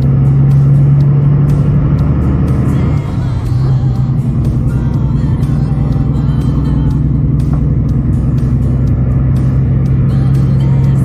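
Road train prime mover's diesel engine pulling steadily at highway speed, heard from the cab as one constant drone; it eases briefly about three seconds in while overtaking an oversize load.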